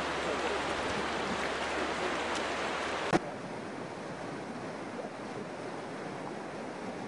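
Steady rush of floodwater from a swollen river. About three seconds in, a sharp click is followed by a quieter, thinner rush.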